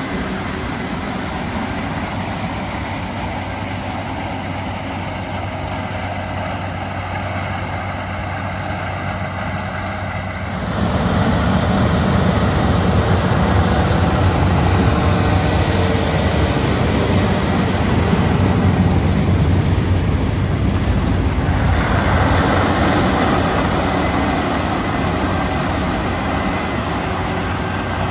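Heavy diesel farm machinery running steadily under corn-harvest work, with a constant engine hum. It becomes clearly louder about ten seconds in and stays loud.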